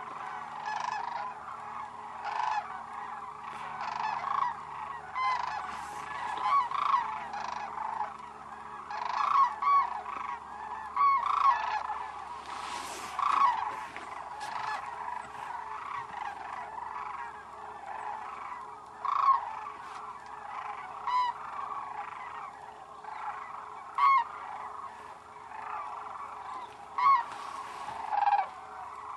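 Large flock of sandhill cranes calling together: a steady chorus of overlapping calls, with louder single calls standing out every few seconds.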